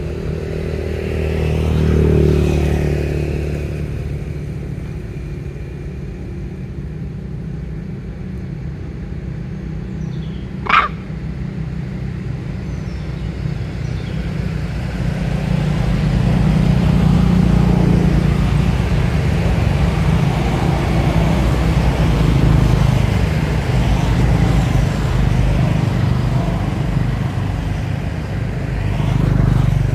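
Steady low rumble of motor-vehicle engines, swelling about two seconds in and again for several seconds past the middle as traffic passes. One short high squeak about eleven seconds in.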